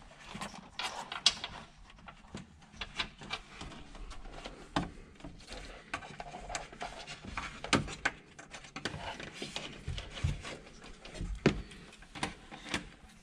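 Hands handling electrical wires and tucking them along the plastic roof trim of a UTV cab: irregular soft clicks, taps and rubbing, with a few sharper knocks.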